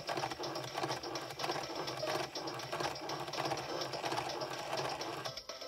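LeapFrog Clic the ABC 123 Laptop toy playing a steady, rapid rattling, whirring sound effect through its small speaker. The sound stops near the end.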